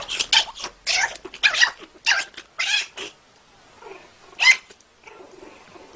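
A kitten and a puppy play-fighting, with a rapid string of short, high-pitched squeaky cries for about three seconds, then one more loud cry about four and a half seconds in.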